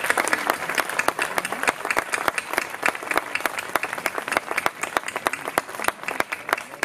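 Audience applauding: many quick hand claps, thinning slightly toward the end.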